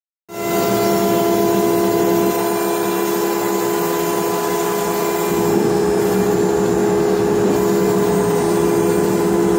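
CNC router spindle running with a surfacing bit planing an MDF spoiler board flat: a steady machine hum with several held tones over cutting noise, starting abruptly about a quarter second in.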